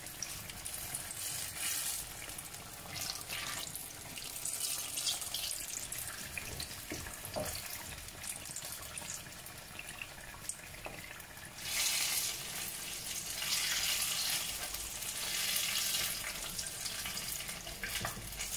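Battered aubergine slices deep-frying in hot oil, a steady sizzle that grows louder for a few seconds past the middle.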